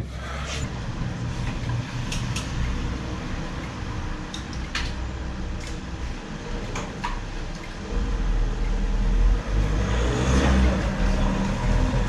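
Low, steady rumble of street traffic that grows louder about eight seconds in, with a few light clicks scattered through it.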